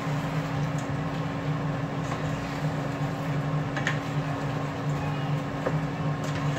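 Shrimp cooking in sauce in a pan, stirred with a spatula, which clicks lightly against the pan a few times, over a steady low machine hum.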